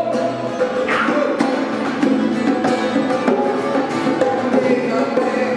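Two acoustic guitars strummed together with bongos played by hand, in an acoustic rock song.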